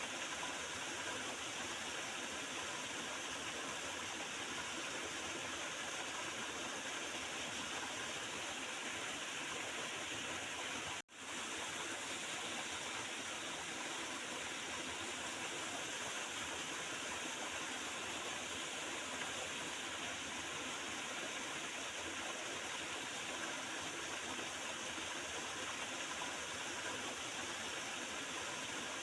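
Small river's water gurgling and flowing over stones, a steady rushing sound that cuts out for a split second about eleven seconds in.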